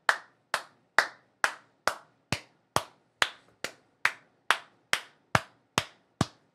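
One person clapping hands in a slow, steady rhythm, a little over two claps a second.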